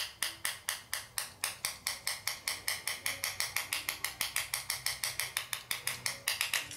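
A serrated metal key scraped hard back and forth across the Gorilla Glass screen of a Samsung Galaxy S III in a scratch test: quick, rhythmic scraping strokes, about five a second, getting slightly faster.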